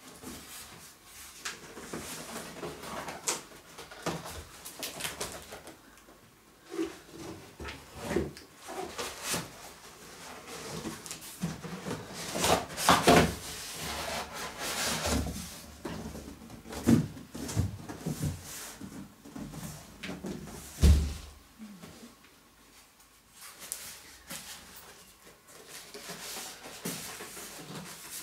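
Cardboard box being lifted and slid up off a computer case packed in styrofoam end caps: irregular scraping and rubbing of cardboard and foam, with scattered knocks and a dull thump about three quarters of the way in.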